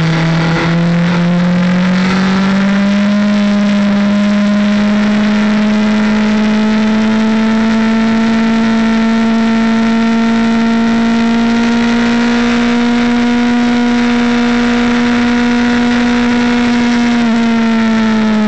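Onboard sound of a track motorcycle's engine pulling hard in third gear. Its pitch climbs in the first few seconds, then holds high and rises slowly as speed builds, over a steady rush of wind. It starts to drop just before the end as the throttle closes for the next corner.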